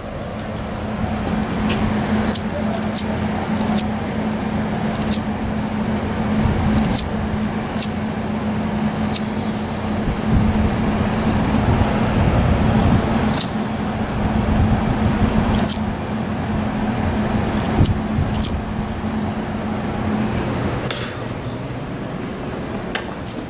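Outdoor city traffic noise, steady throughout, with a constant low hum that stops near the end and scattered light clicks.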